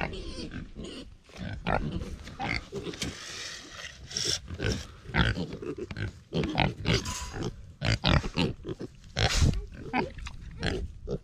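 Pigs grunting in many short, irregular calls.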